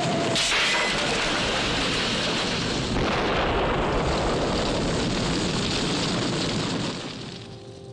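A burning car exploding: a sudden blast just after the start, a second blast about three seconds in, and a long rumble of fire that dies away near the end.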